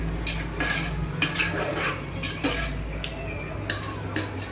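Metal spoon stirring prawn gravy in a metal pan, clinking and scraping against the pan again and again, over a low steady hum.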